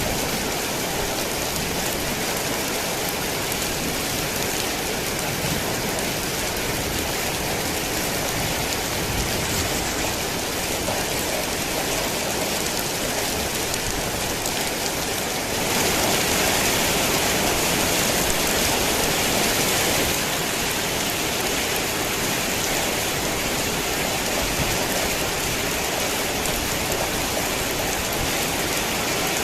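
Heavy rain falling steadily in a dense, even hiss, swelling louder for a few seconds about halfway through.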